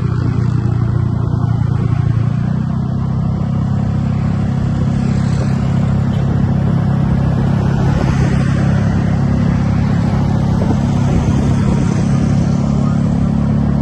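A large bus's diesel engine running with a loud, steady low rumble.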